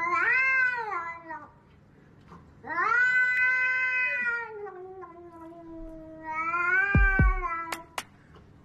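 Domestic cat giving three long yowls, the 'alugalug' calls, each bending up and down in pitch; the second is the longest. A dull thump and two sharp clicks come near the end.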